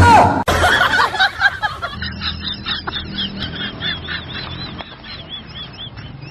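Bird calls across short cut-together clips: a jumble of calls in the first two seconds, then a run of rapid, high, evenly repeated calls.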